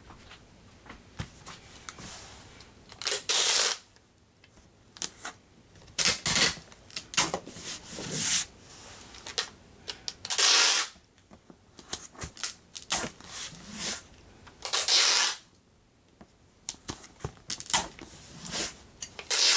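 Parcel packing: several short scraping, tearing sounds, each under a second, with clicks and rustles of packaging between. Near the end, packing tape is pulled from a red hand-held tape dispenser.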